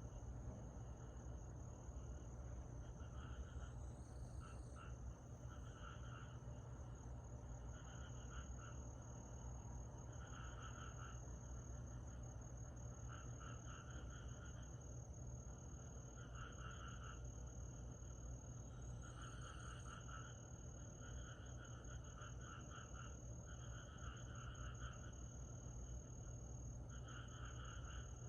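Summer night chorus of insects: one high, steady, unbroken trill, with a lower, pulsing, buzzy call repeating about every one to two seconds. A steady low hum sits underneath.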